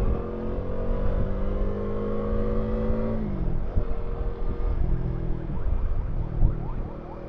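Bajaj Dominar 400's single-cylinder engine pulling with slowly rising revs for about three seconds, then the revs drop and it runs on at a lower, steady pitch, over a low rumble of wind noise.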